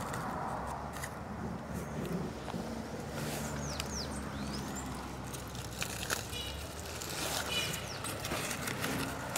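Aluminium foil crinkling in short crackles as a wrapped sandwich is handled and opened, over a steady low hum of street traffic, with a few bird chirps.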